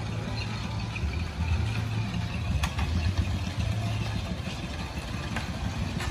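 An engine idling steadily with a low, even hum. A couple of short sharp knocks sound over it, one about two and a half seconds in and one near the end.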